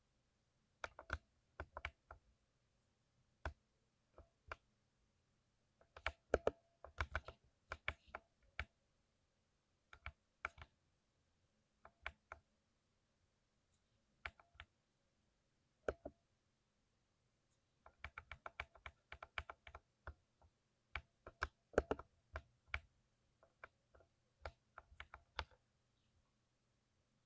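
Keystrokes on a lubed 60% keyboard, typed in irregular bursts of quick clicks with short pauses between.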